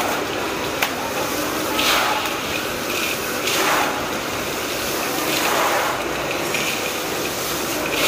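Hands stirring and tossing a large batch of dry, crunchy namkeen mixture (sev, boondi, peanuts and fried poha) in a metal basin: a continuous rustling rattle of the pieces that swells about every two seconds.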